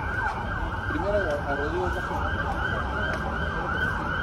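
Emergency vehicle siren sounding a fast yelp, about four sweeps a second, with a slower wavering tone beneath it, over steady street traffic noise.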